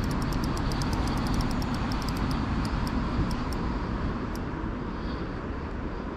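Steady rushing noise of river water, with a fast run of small high clicks from the spinning reel as a fish is reeled in. The clicks thin out after about two and a half seconds, leaving a few single ticks.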